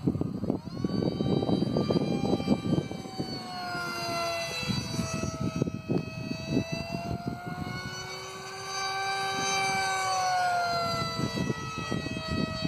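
Electric motor of a RAD JET 800 radio-controlled model jet running on a four-cell pack, whining in flight overhead, its pitch sliding up and down as it speeds up and passes. A gusty rumble of wind on the microphone runs under it.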